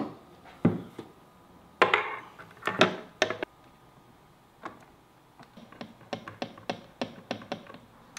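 Metal helm parts knocking and clattering against a wooden console panel as a boat steering helm is fitted to it. From about five seconds in comes a run of light, evenly spaced clicks, about three a second, as the mounting bolts are turned in.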